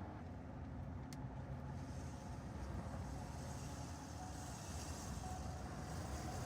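2015 Ford F-150 engine running steadily, with a single sharp tick about a second in. It makes a noise that a newly replaced exhaust manifold gasket has not cured.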